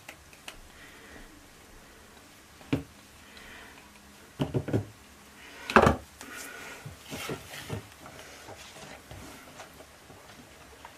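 Plastic utensils and containers knocking on a wooden table: a single knock, a quick cluster of knocks, then the loudest one about six seconds in, followed by lighter clicks.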